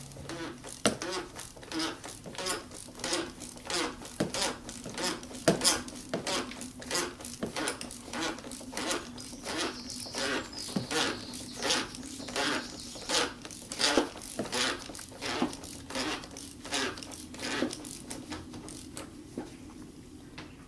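Ratchet wrench clicking, about two clicks a second, as a 27 mm socket works the oil filter housing cap loose. The clicking thins out and stops near the end.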